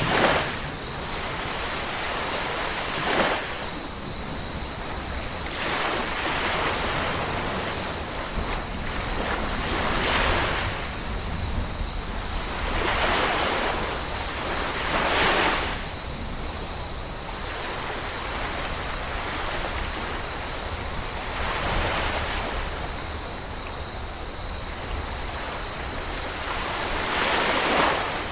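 Ocean waves breaking and washing up on a beach. The surf surges every few seconds, with the biggest waves about halfway through and near the end, over a faint steady high tone.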